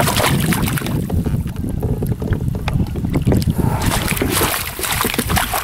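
A hooked rainbow trout splashing at the surface beside a kayak, then water splashing as the fish is scooped into a landing net about four seconds in, over the steady rumble of wind on the microphone.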